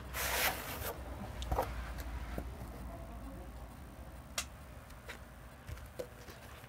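Paper rustling as a rolled paper poster is handled: a rustle lasting under a second at the start, then a few light clicks and taps.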